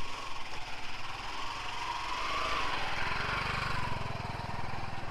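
Small motorcycle engine running close by, its sound swelling in pitch and loudness about halfway through and then easing off.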